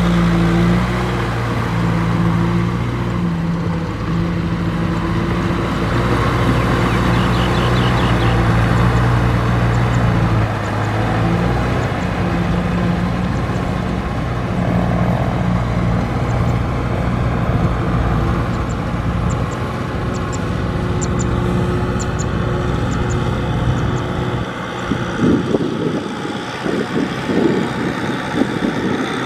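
Kubota M6040SU tractor's diesel engine running steadily under load while pulling a rotary tiller through a flooded rice paddy, with mud and water churning. Near the end the engine hum fades under irregular thumps.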